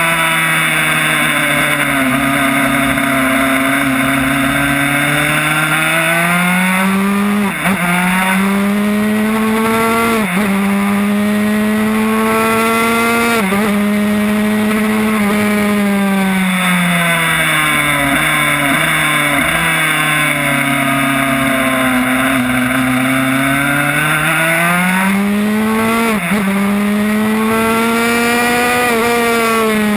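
Yamaha YZ85 single-cylinder two-stroke engine in a Honda RS125 race bike, revving hard through the gears. The pitch climbs with a brief dip at each of three quick upshifts, drops off with downshift blips as the bike slows, then climbs again to one more shift and falls near the end. Wind rushes over the bike throughout.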